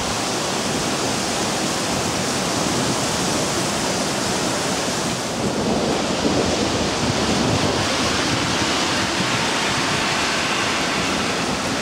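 Heavy rain pouring down during a thunderstorm, a loud, steady hiss of rainfall that changes slightly in tone about five seconds in.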